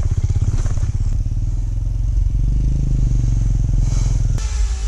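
Benelli Imperiale 400's single-cylinder engine running with an even train of firing pulses as the bike rides a dirt track. Near the end the engine sound cuts off abruptly and background music takes over.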